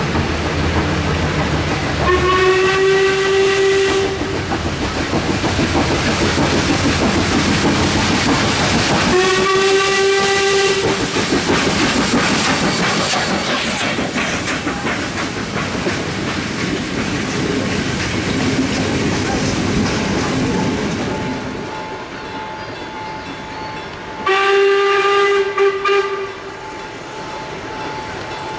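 British-built 4-6-0 steam locomotive sounding its steam whistle three times: about two seconds in, again about nine seconds in, and once more near the end. Between the blasts the engine and its carriages clatter past over the rail joints, and the running noise fades away after about twenty seconds.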